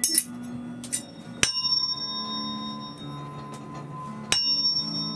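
Therapeutic tuning fork struck twice, about a second and a half in and again near the end. Each strike is a bright metallic ping with high overtones that fade quickly, and a clear steady tone rings on between them.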